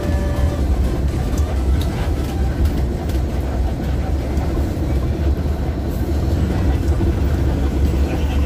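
Steady low rumble of a moving bus heard from inside the passenger cabin: engine and road noise while travelling.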